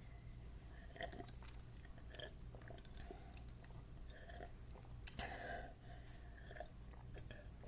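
A person gulping down Sprite: faint swallows about once a second, the biggest about five seconds in.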